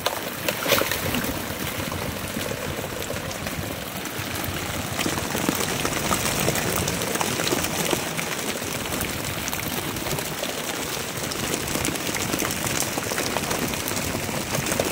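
Freshly landed tuna flapping and thrashing on a plastic tarp, a dense, rapid patter like rain, mixed with dripping and splashing water. There is a louder splash about a second in as a scoop net of fish is emptied onto the deck.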